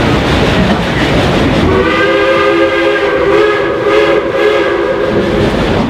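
A narrow-gauge steam locomotive's whistle sounds one long, steady chord of several notes for about three seconds, starting about two seconds in. Under it runs the steady noise of the moving train.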